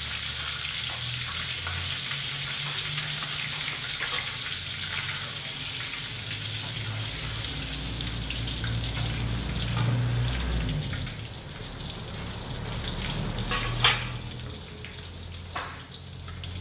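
Hot cooking oil in a wok sizzling and bubbling after frying mud crabs, easing off about two-thirds of the way through. Two sharp clanks near the end.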